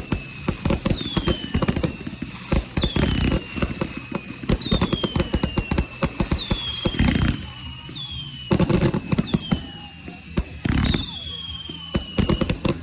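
Fireworks going off: rapid crackling pops and bangs, with heavier bursts of reports about seven, nine and eleven seconds in, over a string of short falling whistles about once a second.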